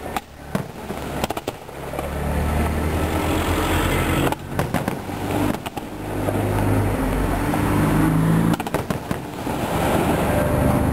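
Aerial firework shells bursting one after another in a near-continuous run of low booms, broken by several sharper bangs.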